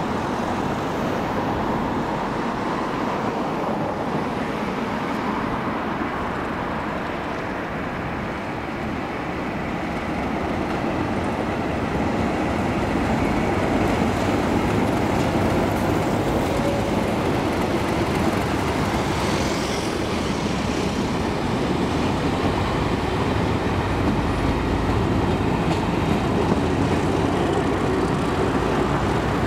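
Class 37 diesel-electric locomotive 37607, with an English Electric V12 engine, running under power as it hauls a test train past, getting louder as it comes by about halfway through. It is followed by the steady noise of the coaches' wheels rolling over the rails.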